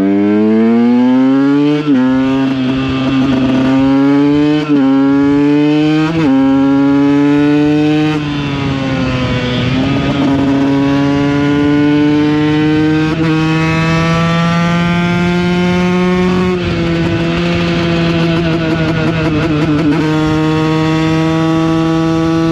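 Two-stroke supermoto engine accelerating hard through the gears, its note climbing and then dropping at each of three quick upshifts in the first six seconds. It then holds a steadier high-revving pitch with slow rises and falls, and shifts again about sixteen seconds in.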